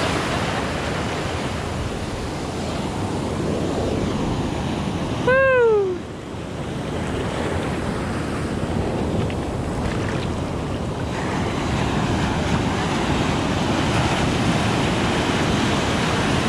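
Ocean surf breaking and foaming in the shallows, a steady rush of water, with wind buffeting the microphone. About five seconds in, a short loud cry falls in pitch over the surf.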